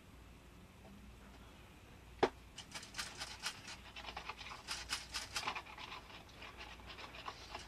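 A single sharp knock about two seconds in, then a hand-cranked rotary flour sifter being turned, its blades rasping flour and cornstarch through the mesh in fast, uneven scratchy strokes.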